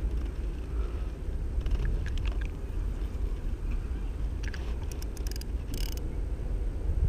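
Steady low outdoor rumble with no clear source, with a few faint ticks in the middle and a brief hiss a little before the end.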